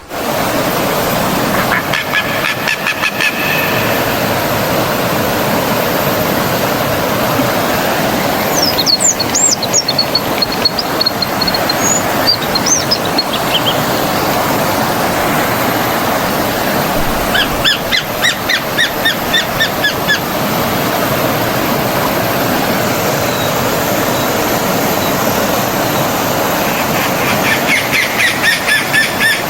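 Stream water running steadily, with birds calling over it: several bursts of rapid repeated notes, and a run of high whistled notes about nine to thirteen seconds in.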